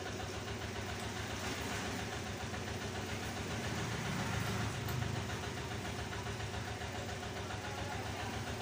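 An engine or motor running steadily in the background with a fast, even pulse.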